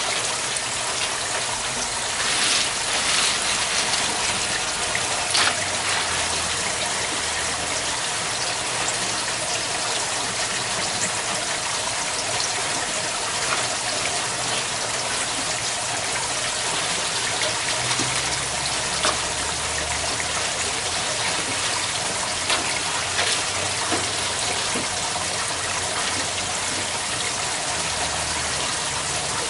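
Water from the pump splashing and trickling steadily into an aquaponics grow bed of lava rock, with a few clinks of rock being shifted by hand.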